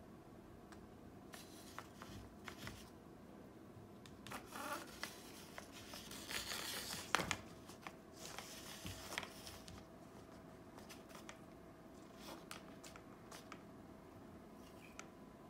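Faint, scattered rustling and soft clicks of a yellow paper tiger mask and its elastic band being nosed and nudged by a cat on a wooden floor, with a louder stretch of rustling and one sharper click about six to seven seconds in.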